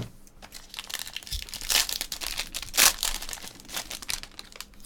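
Foil wrapper of a 2018 Topps Inception baseball card pack being torn open and handled. It is a run of quick rips and rustles, loudest twice, at about two and three seconds in.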